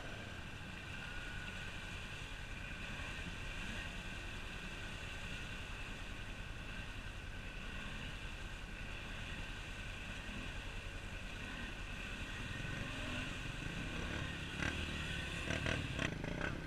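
Off-road vehicle engines running steadily while an ATV churns through mud. The low rumble grows louder over the last few seconds, with a few sharp knocks near the end.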